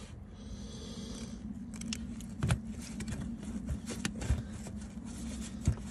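Scattered sharp clicks and knocks of hands working a part loose among plastic and metal parts in a van's engine bay, over a steady low hum.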